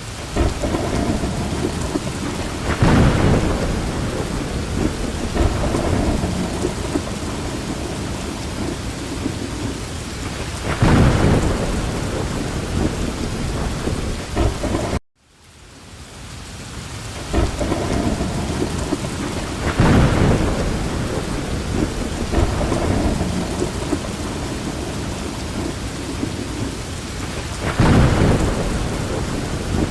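Heavy rain falling steadily, with thunder rumbling through it and swelling several times. The sound cuts out abruptly about halfway through, then fades back in.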